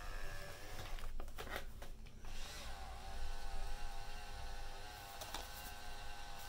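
A few clicks from handling the plastic camera body, then, about two and a half seconds in, the eCamera V3000 35mm camera's small motor starts rewinding the film. It runs as a steady whine with a slight waver in pitch.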